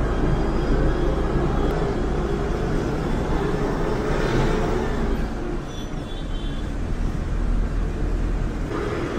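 Ashok Leyland bus running through city traffic, heard from inside the cabin at the front: a steady engine and road rumble that eases a little about halfway through, then picks up again.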